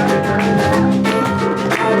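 Live band music: an instrumental passage with guitar.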